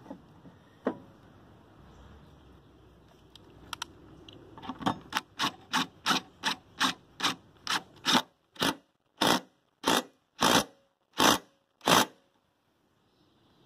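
Cordless impact driver tightening a lawn mower blade bolt in nearly twenty short trigger bursts, quick at first and then slower and louder, about one every 0.7 seconds, stopping shortly before the end.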